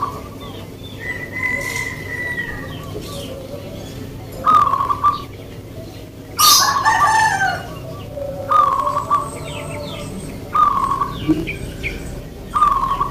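Zebra doves (perkutut) cooing in short repeated phrases, one about every two seconds. A rooster crows once in the middle, and small birds chirp faintly.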